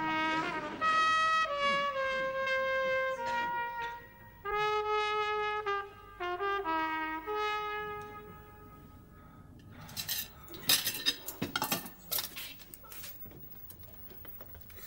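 Theme music for the opening titles: a single brass instrument playing a melody of held notes that ends about eight seconds in. Then china plates and cutlery clatter and clink in a sink while dishes are washed.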